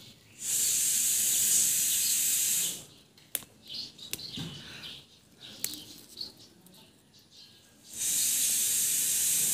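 A steady, high hiss comes in twice, each time for about two seconds, and is the loudest sound. Between the two, short snaps and leaf rustles come from okra plants being handled as the pods are picked.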